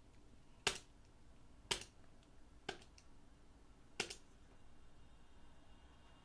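Four single key presses on a computer keyboard, about a second apart, answering the package installer's prompts to start the install.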